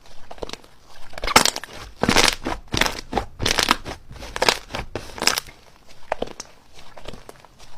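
Slime being squished and worked, giving a run of crackling, popping bursts, loudest and densest from about a second and a half to five and a half seconds in.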